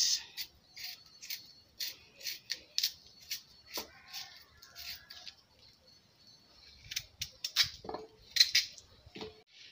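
A kitchen knife slicing through raw, peeled yam held in the hand, with a short, crisp cut about twice a second. Near the end come a few fuller knocks as the cut pieces go into a glass bowl.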